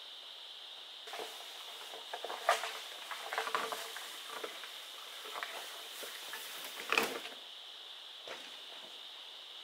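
Irregular wooden knocks and clatter, like pieces of wood being handled and set down, loudest about two and a half seconds in and again near seven seconds, then stopping. A steady high-pitched hiss runs underneath throughout.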